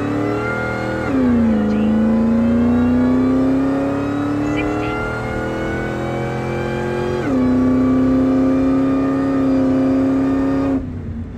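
Supercharged 5.4-litre V8 of a 2001 Ford F-150 SVT Lightning pulling hard at full throttle, heard from inside the cab. The engine note climbs steadily and drops twice as the automatic upshifts, about a second in and about seven seconds in, then the sound falls away sharply near the end.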